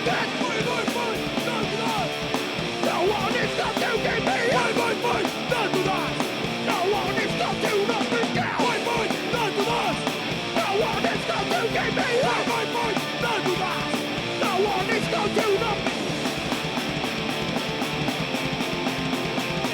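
Live punk rock band playing an instrumental stretch of a song: loud distorted electric guitars over a rapid drum beat, with no singing.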